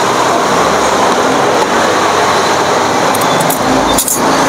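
Steady, loud noise of street traffic, with a brief break about four seconds in.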